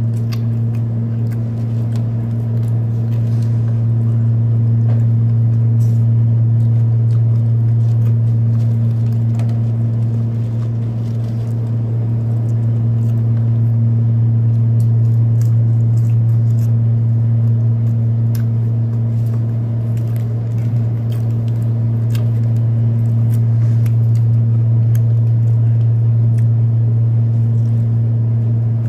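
Window air conditioner running with a loud, steady low hum, with faint scattered clicks of chewing and food being handled.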